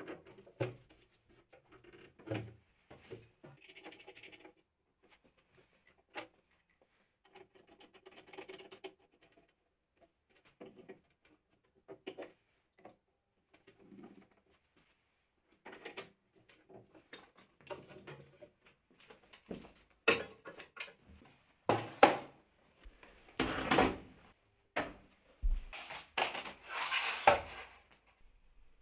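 Handling noises of welding cables and their plugs on an inverter welder sitting on a steel welding cart: scattered clicks, knocks and rubbing as the leads are plugged into the front sockets and coiled. Louder knocks and rattles come in the last several seconds.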